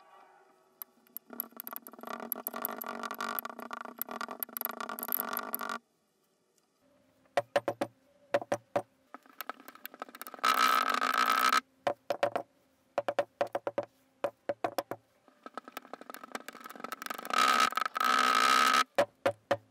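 Kinetic sand being cut and scraped with a thin metal blade inside a glass, with the audio played in reverse: three long gritty scraping stretches with sharp taps and clicks of metal on glass between them.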